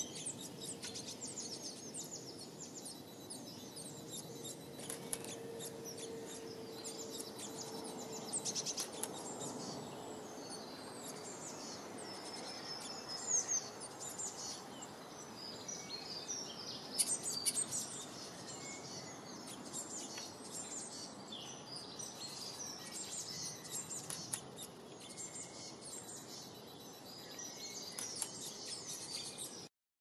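Small songbirds chirping and singing, with many quick high calls and trills overlapping, over a steady background hiss.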